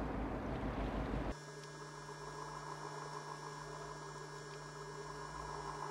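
A low, noisy rumble of the boat's engine and wind cuts off abruptly about a second in, giving way to a quieter, steady electrical hum with a few fixed tones.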